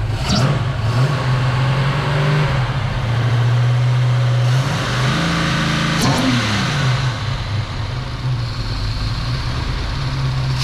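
1967 Chevy Nova engine running, its revs stepping up about halfway through with a few quick blips. The dipstick is pulled up, so the unwelcome noise of it rubbing the crankshaft counterweight is gone.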